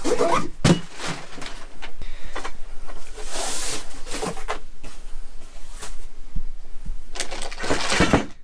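Cardboard packaging and plastic wrap being handled, scraping and rustling at irregular moments, with a plastic bag of hardware crinkling near the end.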